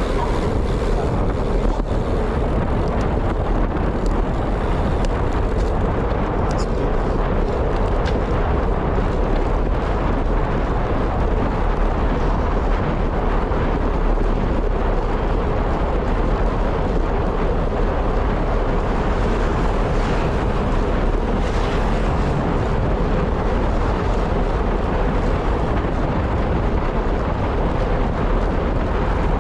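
Steady wind rush and rumble buffeting the microphone during a fast ride, with no let-up.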